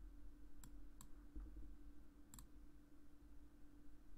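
Faint computer mouse clicks: two single clicks about a second in, then a quick double click a little past two seconds, over a faint steady low hum.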